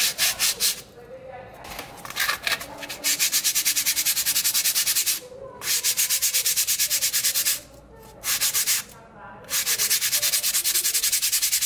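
Fine wet-and-dry sandpaper rubbed rapidly back and forth across the end of a piece of Depron foam, bevelling it to a thin blade edge. Quick strokes, about seven a second, come in several runs of one to two seconds with short pauses between.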